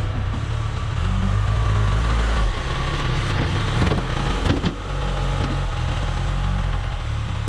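John Deere 410 backhoe's diesel engine running steadily, with a few short knocks partway through.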